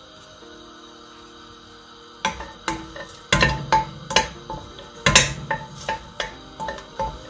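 Soft background music, then from about two seconds in a wooden spoon knocking and scraping irregularly against a stainless steel pot while garlic is stirred in hot olive oil.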